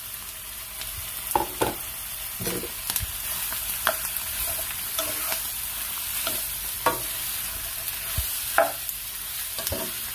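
Raw pork cubes sizzling in hot oil with onion and garlic in a non-stick frying pan, searing until the meat changes colour. A spatula scrapes and knocks against the pan at irregular moments as the pork is stirred.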